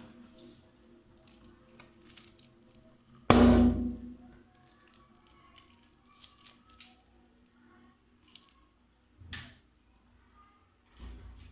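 A balloon bursting with one loud, sharp pop about three seconds in, amid quieter rubbery rustling and handling, with a smaller snap later on.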